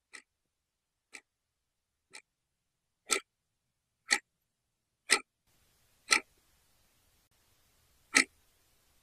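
Clock ticking, one sharp tick a second, quiet at first and much louder from about three seconds in.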